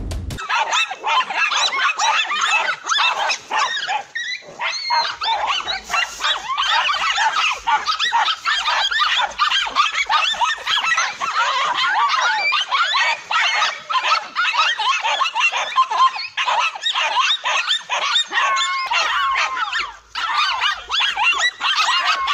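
Dogs barking and yelping in a fight, rapid overlapping barks with hardly a pause and one short break near the end.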